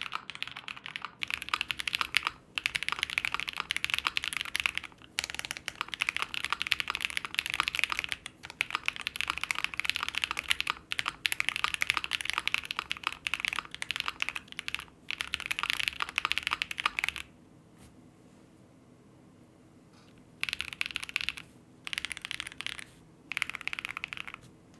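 Mechanical keyboard typing: an ai03 Vega fitted with lubed Tecsee Ice Candy switches and doubleshot ABS GMK keycaps. Fast, continuous typing with a few brief pauses runs for most of the stretch, then stops. After a few seconds of quiet come three short bursts of keystrokes.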